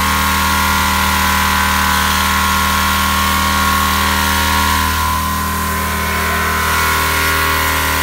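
Gasoline pressure washer's small engine running steadily at full speed, with the hiss of the high-pressure water jet spraying.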